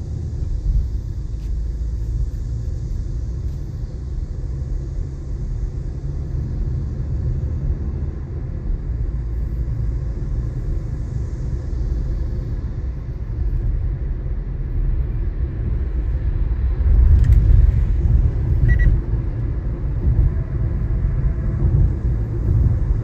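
Steady low road and engine rumble of a moving car, heard from inside the cabin, growing louder about three-quarters of the way in.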